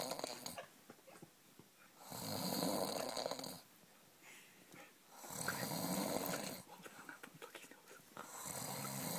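A person snoring in a slow, even rhythm: three long snores about three seconds apart, with quiet breaths in between.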